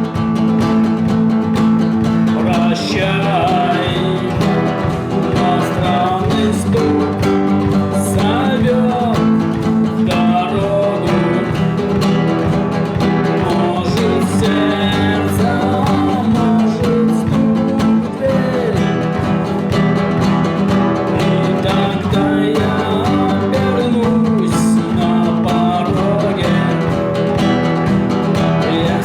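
A song played on guitar and drums together by one player, the guitar carrying the tune over a steady drum beat.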